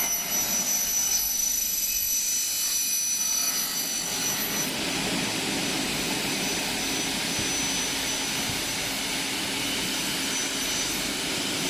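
Double-head CNC aluminium cutting saw running with its blades cutting automatically through an aluminium window profile. It makes a steady high-pitched whine, strongest for the first few seconds and then lighter.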